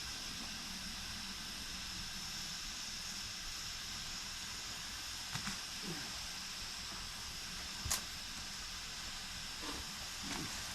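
Campfire burning damp green leaves, hissing steadily, with a single sharp pop about eight seconds in.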